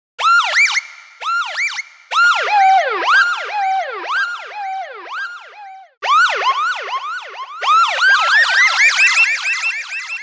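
Electronic police siren in yelp mode: fast, repeated rising-and-falling sweeps in pitch. It breaks off and restarts twice. In the second half the yelps come faster, about four or five a second, and the pitch climbs higher.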